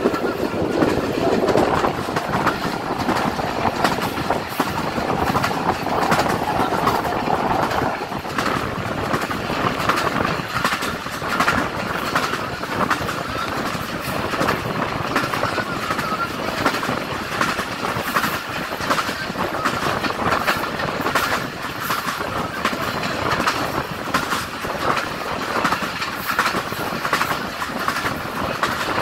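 Bangladesh Railway passenger coaches running at speed, heard from an open coach window: continuous wheel-on-rail rumble with frequent clicks as the wheels pass over rail joints.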